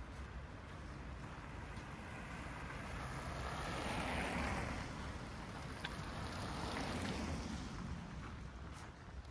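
City street traffic: a passing vehicle's tyre and engine noise swells to a peak about four seconds in, a second swell follows around seven seconds, and both fade away.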